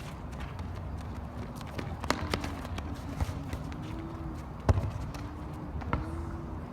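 Footballers' feet running and scuffing on an outdoor court, with a few sharp knocks of the ball being kicked, the loudest about two-thirds of the way in, over a steady low rumble.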